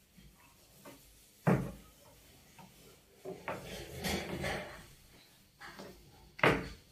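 Thin wooden rolling pins (oklava) rolling out yufka dough on round wooden boards: wooden rubbing and tapping, with two sharp wooden knocks, about a second and a half in and near the end, and a busier stretch of rolling and scraping in the middle.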